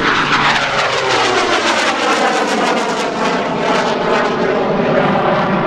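Jet Waco biplane under full power, its Pratt & Whitney R-985 nine-cylinder radial engine and propeller mixed with a General Electric CJ610 turbojet. The engine note falls in pitch as it passes close over the first couple of seconds, then holds loud and steady as it climbs away.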